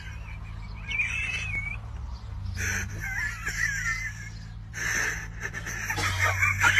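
Several birds chirping and calling over one another in quick, warbling phrases, with two louder, busier stretches in the second half. A steady low hum runs underneath.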